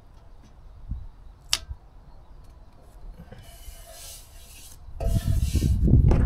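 Hands working masking tape onto a steel compressor tank: a sharp click about a second and a half in, then the dry rubbing of a palm smoothing the tape down, and louder rustling and knocking of handling near the end.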